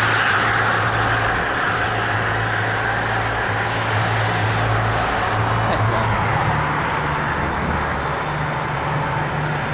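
Car engine and road noise heard from inside a moving car: a steady low engine hum under tyre and wind hiss, the hum shifting higher about six and a half seconds in.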